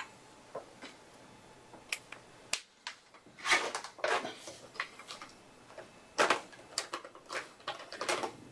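Art markers being handled while a new colour is picked: a run of sharp plastic clicks and short clattering rustles with quiet gaps between. The sounds come thicker and louder in the second half.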